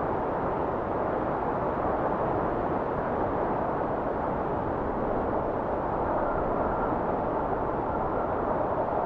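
Steady wind blowing as a continuous rushing noise, with a faint thin whistle coming in now and then over the last few seconds.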